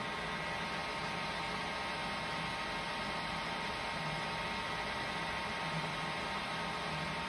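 Clausing-Metosa 14 x 40 engine lathe running under power: a steady hum with thin, even high tones over a hiss of noise, and a low tone that swells slightly about four seconds in and again near the end.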